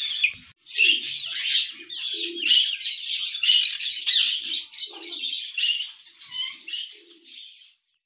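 A flock of young Polish chickens peeping and chirping continuously in many overlapping, high-pitched calls, with occasional lower calls underneath. It starts about half a second in and stops just before the end.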